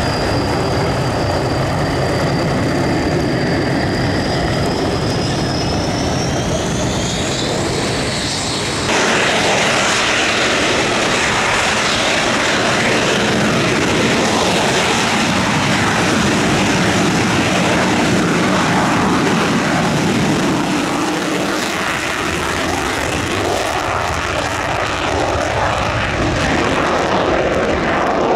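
Panavia Tornado RB199 jet engines at full power on departure, a loud steady roar. A high whine over it rises in pitch over the first several seconds, then about nine seconds in the sound changes abruptly to a louder, even roar.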